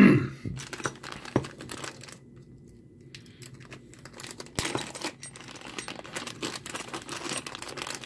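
Thin clear plastic bag crinkling and crackling irregularly as it is handled and pulled open by hand, with a short louder sound at the very start.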